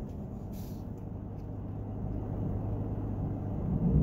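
Steady low rumble of a car's cabin background, with a short faint noise about half a second in.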